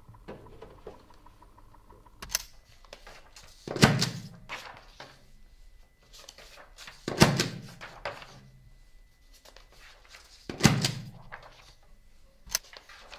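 Three heavy thuds, evenly spaced about three and a half seconds apart, each trailing off in a short low boom, with a sharper click before the first and after the last.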